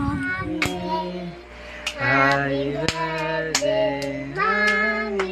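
A child singing a tune in long held notes, with several sharp claps between the notes.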